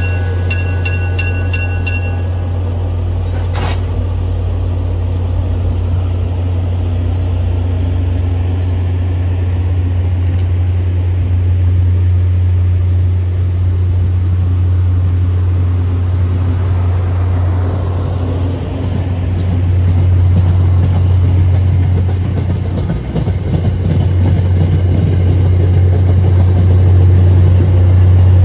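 MBTA push-pull commuter train rolling past on its coaches, with a steady low drone from the F40PH-3C diesel locomotive pushing at the rear that grows louder as the locomotive nears. A bell rings in quick strokes for about the first two seconds, a single metallic clank comes about four seconds in, and wheel clicks on the rail build toward the end.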